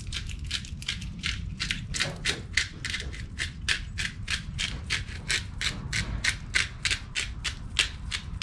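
Hand pepper mill grinding black peppercorns, twisted over and over: a steady run of crunching clicks, about four a second.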